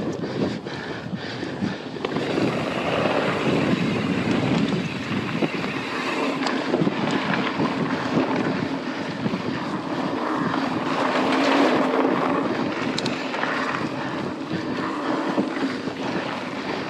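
Wind rushing over the microphone and mountain bike tyres rolling over dirt singletrack, with occasional clicks and knocks from the bike over bumps.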